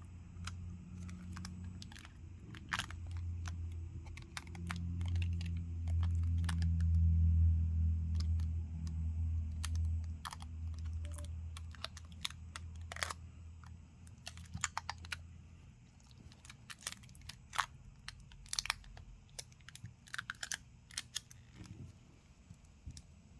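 Scattered light clicks and taps of a phone and small repair tools being handled on a workbench, over a low hum that swells in the middle and fades out about two-thirds of the way through.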